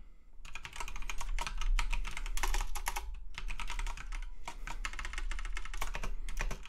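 Typing on a computer keyboard: quick runs of key clicks, starting about half a second in, with a short pause about halfway through.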